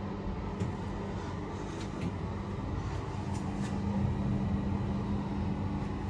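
Passenger lift car travelling in its shaft: a steady low hum and rumble from the lift machinery, with a few faint ticks.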